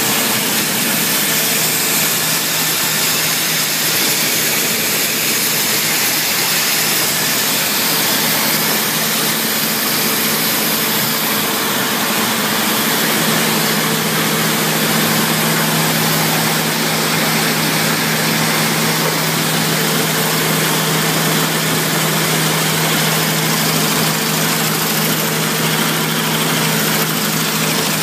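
Bobst Media folder-gluer running at production speed, folding and gluing envelope gift card holders: a steady, loud mechanical noise with a low hum underneath that grows stronger about halfway through.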